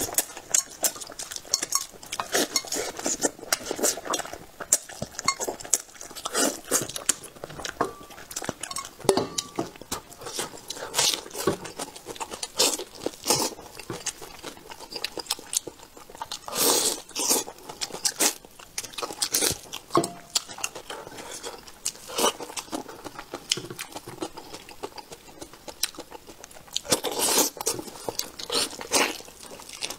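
Close-miked wet chewing, sucking and lip-smacking as a braised rooster head is eaten by hand: an irregular run of short clicks and smacks, with a few longer sucking sounds.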